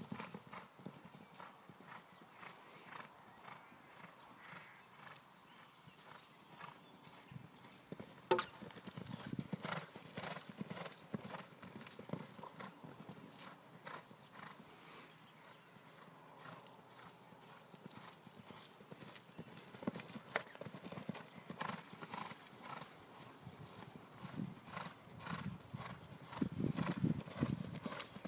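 Hoofbeats of a horse cantering on a sand arena: a run of soft thuds that grows louder near the end as the horse passes close.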